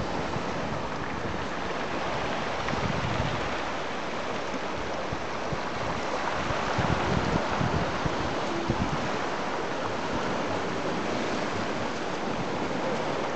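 Small sea waves washing over rocks and a pebble shore, a steady hiss of surf, with wind buffeting the microphone now and then as low rumbles.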